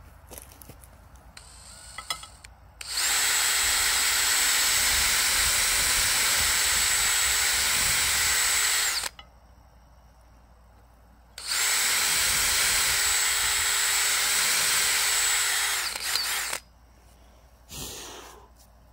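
Power drill running at a steady speed in two runs of about six and five seconds, boring a hole through a loaf of canned brown bread.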